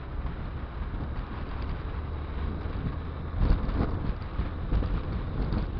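Wind buffeting the microphone of a Honda XRE 190 motorcycle riding a dirt road, with the engine and tyres running underneath as a low rumble; the wind is louder about three and a half seconds in and again near five seconds.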